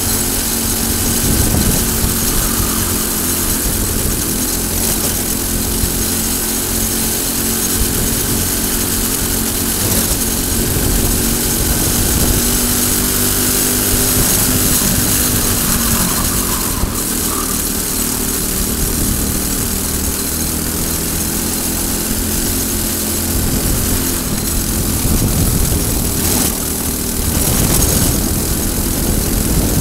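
Briggs & Stratton single-cylinder four-stroke kart engine running at racing speed on board, its note rising under throttle and dropping when it slows for corners, with a steady hiss of wind and road noise.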